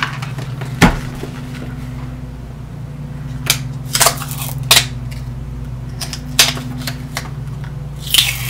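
Handling noises of sealed lead-acid UPS batteries and a cardboard replacement-battery box on a desk: a sharp knock about a second in, several lighter clicks and taps, and a short rustle near the end, over a steady low hum.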